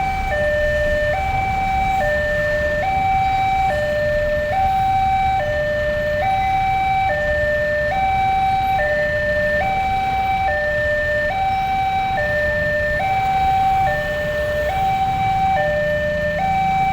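Train's two-tone telolet-style horn sounding in a steady hi-lo pattern, a higher and a lower note alternating evenly, each held a little under a second, over a low rumble.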